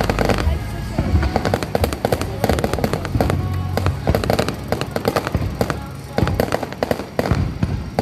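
Aerial fireworks barrage: a rapid, unbroken string of bangs and crackles from shells bursting one after another, with music playing.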